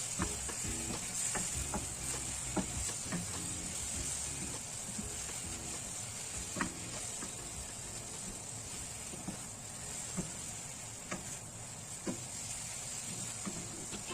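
Bitter gourd and egg stir-frying in a pan: a steady sizzle with scattered clicks and scrapes of the spatula against the pan as it is stirred.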